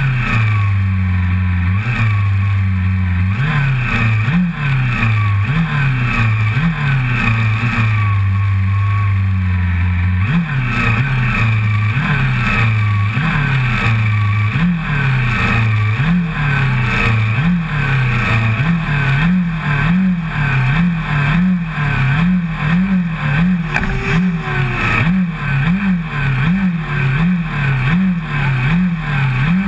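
1988 Honda CBR400RR's inline-four engine, held at a steady fast idle on the starting grid for the first ten seconds or so. Then it is revved over and over, the throttle blipped roughly once a second and a little faster toward the end.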